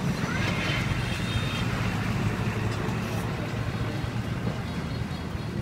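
Steady low engine rumble of street traffic, with faint voices in the background.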